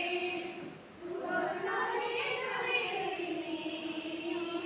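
A women's choir singing a Christmas carol together, holding long notes, with a brief dip for breath about a second in.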